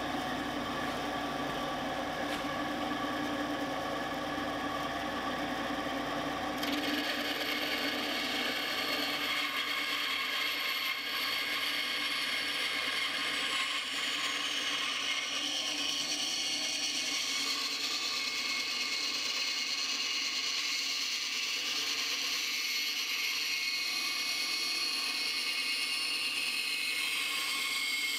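Skil benchtop bandsaw running, its motor humming steadily. About six seconds in, the blade starts cutting into the wooden butt of a flintlock rifle stock, and a higher-pitched hiss of sawing joins the hum and carries on through the rest.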